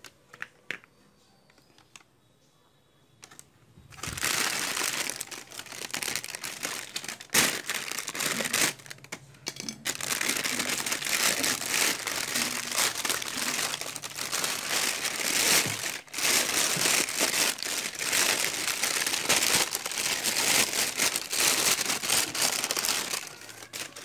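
Thin plastic bag crinkling and rustling as hands pull a new washing-machine gearbox out of its wrapping. It starts about four seconds in and goes on, dense and continuous, until shortly before the end.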